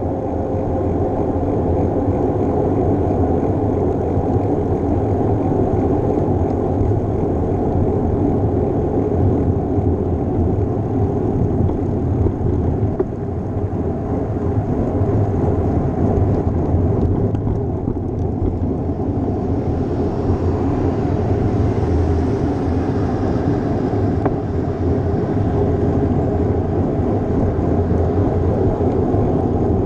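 Steady rushing noise from wind and road on a bike-mounted GoPro's microphone while cycling, loud and unbroken throughout.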